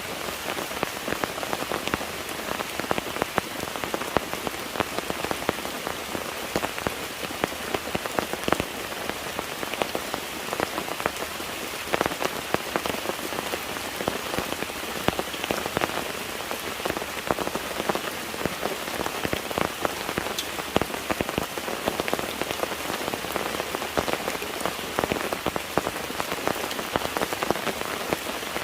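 Steady rain falling, a dense, even stream of drops striking a surface.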